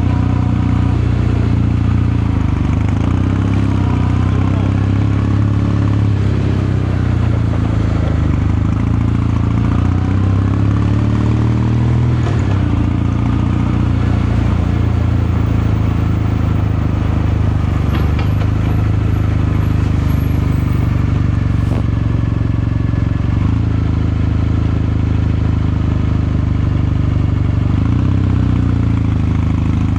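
Kawasaki Meguro K3's air-cooled 773 cc parallel-twin engine and exhaust running steadily under way, its pitch easing up and down a little a few times.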